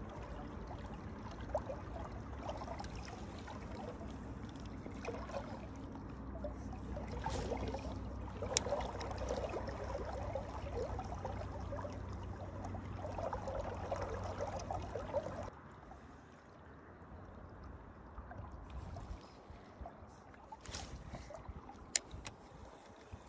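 Shallow river water rushing and splashing, with a few sharp clicks. The louder rushing drops off suddenly about two-thirds of the way through, leaving quieter water.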